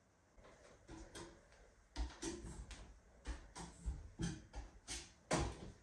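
Footsteps and knocks of a person climbing a steel loft ladder with wooden rungs: a run of dull thumps about every half second, the loudest near the end.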